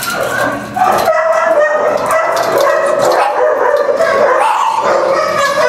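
Many kennelled shelter dogs barking and yipping at once, a loud continuous din that builds up about a second in.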